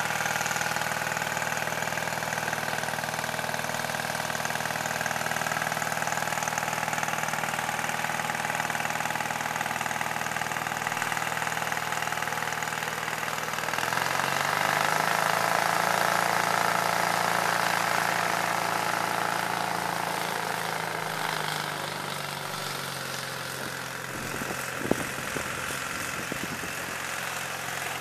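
Kitfox light aircraft engine running steadily, then revving up about halfway through and holding higher revs for several seconds before easing back down. A single sharp click near the end.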